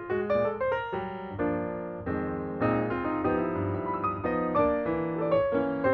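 Background piano music, a run of quick notes with no speech.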